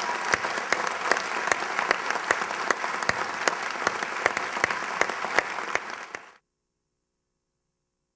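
A crowd applauding, a dense clatter of clapping with individual sharp claps standing out, which cuts off suddenly about six seconds in.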